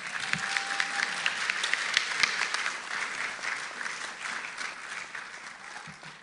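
Audience applauding, loudest at first and then tapering off toward the end.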